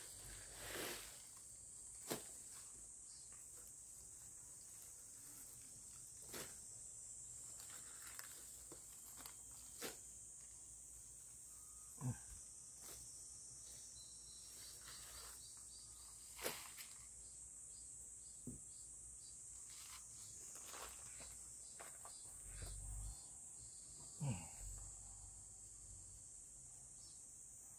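Faint, steady high-pitched insect chorus, with a few sharp snaps and rustles from green onion stalks being handled and trimmed with a small knife.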